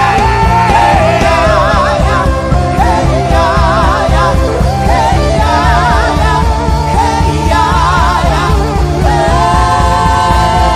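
Worship music: a voice sings wavering, ornamented lines over held chords and a steady low pulse.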